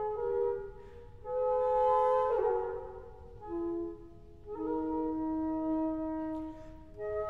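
Two transverse flutes playing an unaccompanied Baroque duet, both lines in long held notes close together in pitch, with short breaks between phrases.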